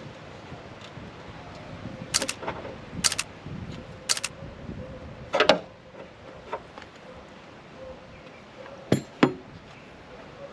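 Metal hand tools and bolt hardware clinking: a wrench knocking against bolts and the steel mounting brackets while the bolts are snugged down. There are several separate sharp clinks, with two close together near the end.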